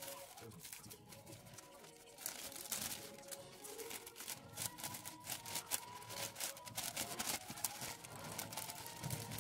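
Wrapping paper and a plastic bag crinkling and rustling as they are handled and folded, in a string of short crackles, with faint background music.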